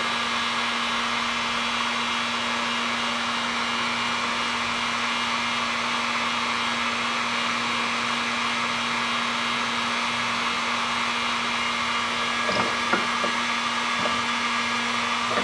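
Heat gun blowing steadily with an even hum, heating the cut ends of a polyurethane round belt until they melt for a butt weld. A few faint clicks come near the end.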